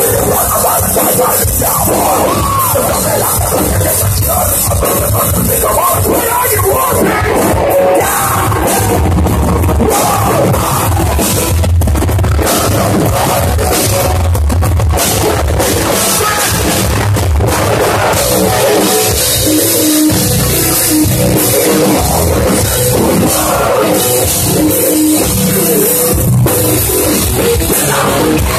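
Heavy metal band playing live and loud: electric guitars, bass and drum kit, with a singer at the microphone.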